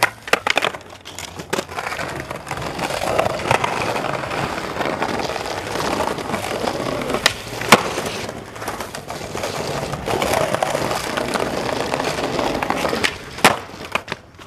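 Skateboard wheels rolling over stone paving, with sharp board clacks near the start and about seven and a half seconds in. Near the end a bail: several quick clacks as the board hits the ground and clatters away.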